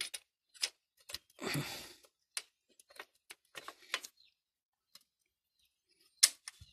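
Scattered sharp metallic clicks and clinks of small engine parts and hand tools being handled during motorcycle engine reassembly, with a short scraping rustle about a second and a half in and the sharpest click near the end.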